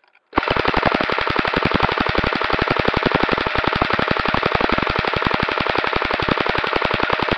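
Airsoft electric rifle firing one long full-auto burst: rapid, evenly spaced shots at roughly fifteen to twenty a second, with a faint steady whine from the gearbox underneath. The fire starts about a third of a second in.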